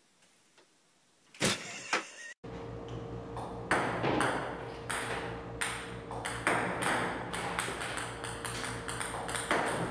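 Table tennis balls clicking as they bounce on the table, two or three hits a second, over the steady hum of a table tennis ball robot's motor. A couple of sharp knocks come just before the hum starts.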